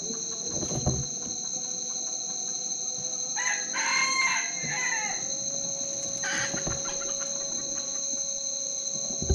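A red junglefowl rooster crows once, a loud call from about three and a half seconds in, followed by a shorter call a couple of seconds later, over a steady high-pitched drone.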